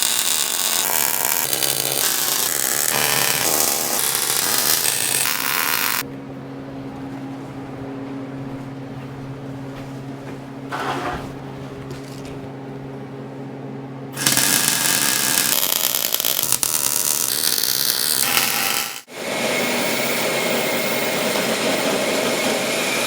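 Electric arc welding on steel: the arc crackles and hisses in runs, stopping for about eight seconds where only a steady low hum is left, then striking up again, with a brief break just before the end.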